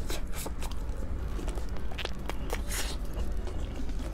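Close-miked eating: biting off and chewing red-glazed fried chicken, with irregular wet crackles and clicks of the mouth, over a steady low hum.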